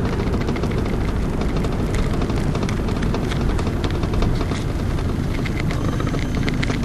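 A 1990 Mercedes-Benz 300D 2.5, heard from inside the cabin while it drives: its 2.5-litre five-cylinder diesel engine running under way, mixed with tyre and road rumble, a steady low sound.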